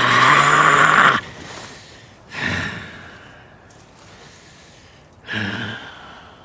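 A wounded man groaning in pain: one long, loud groan in the first second, then two shorter pained groans about two and a half and five and a half seconds in.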